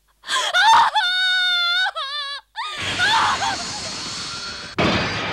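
A high-pitched scream, held steady for about a second and wavering as it breaks off. A dense rushing noise follows, with a sharp hit near the end.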